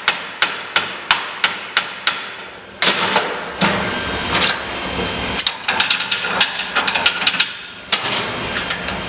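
Hammer striking hot iron on an anvil, sharp ringing blows about three a second, forging a nail head. After about three seconds a steady machine noise takes over, with a rapid flurry of strikes in the middle of it.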